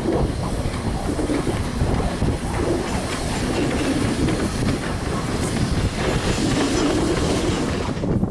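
Everett Railroad No. 11 steam locomotive running light past at speed, its exhaust and wheels on the rails making a steady clatter.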